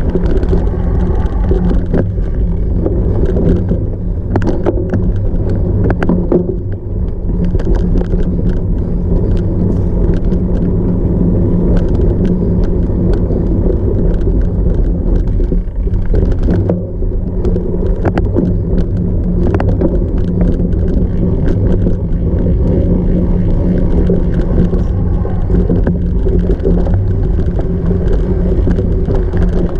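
Cyclocross bike riding over rough off-road ground: a loud, steady rumble of wind and rolling noise with many sharp clicks and knocks from the bike rattling.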